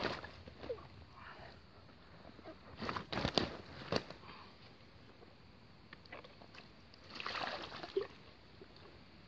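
Water sloshing and splashing in a wet carp unhooking mat as a mirror carp is handled in it, in short bursts about three seconds in and again about seven seconds in, with a few sharp knocks.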